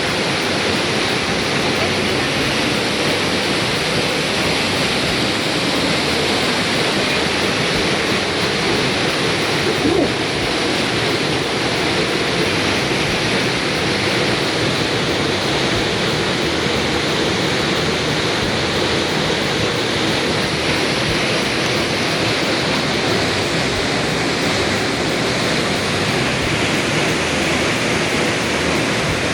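Waterfall pouring: a loud, steady rush of falling water, with a single brief knock about ten seconds in.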